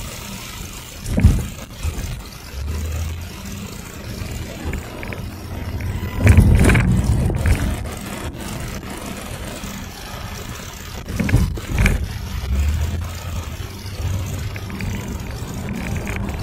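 Car driving, heard from inside the cabin: steady engine and road rumble, with a few heavy thumps about 1 second, 6 seconds and 11 seconds in, the one around 6 seconds the loudest.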